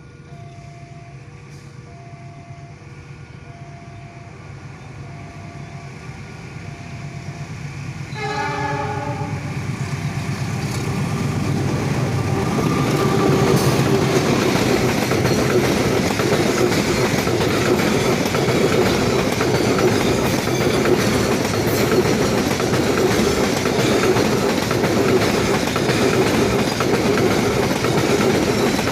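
A cement freight train approaching and passing. A low rumble and a faint alternating two-note tone come first, then a short horn blast about eight seconds in. After that a loud, steady rumble with wheel clatter as the wagons go by.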